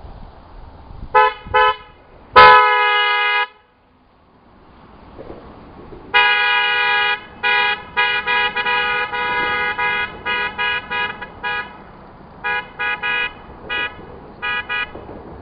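Wolo Maxi Sound 320-2T twin electric car horn, run off a 12-volt battery, sounding its two notes together. It gives two short toots and a one-second blast, then a long string of blasts, some about a second long and others quick toots.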